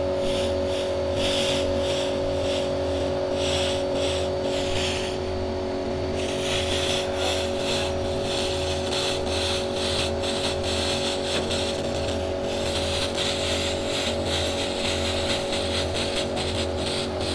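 Pulsed laser cleaner stripping paint and putty from a car panel: a hissing crackle from the beam on the surface, over a steady hum from the machine. The crackle comes and goes in patches and drops away briefly about five seconds in.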